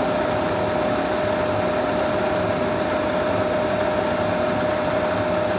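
Standard Modern 1660 geared-head lathe running with its spindle at about 500 rpm: a steady whine over an even mechanical hum.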